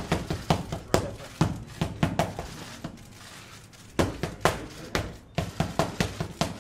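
Boxing gloves smacking focus mitts in quick combinations of punches, with a short lull in the middle before a fresh flurry about four seconds in.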